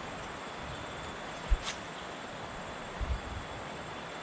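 Steady rush of river water over rocks, with a sharp low thump about one and a half seconds in and two smaller thumps about three seconds in.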